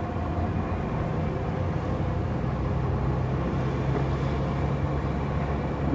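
Car engine and road noise heard inside the cabin while driving: a steady low hum.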